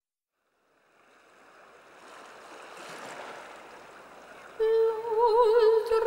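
Music fading in from silence. A soft rushing swell grows over a few seconds, then a little past the middle a held high note with a slow wavering vibrato comes in, much louder.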